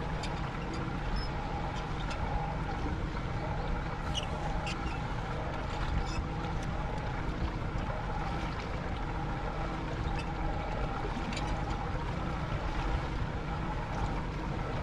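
Steady noise aboard a small rigid inflatable boat: a low engine hum mixed with wind and water, with a few faint clicks.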